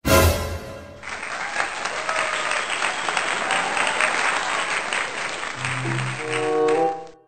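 Crowd applause laid over the soundtrack, starting about a second in after a brief musical hit, with low brass notes joining near the end.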